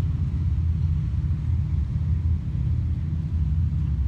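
A steady low rumble that wavers in strength, with nothing higher-pitched above it.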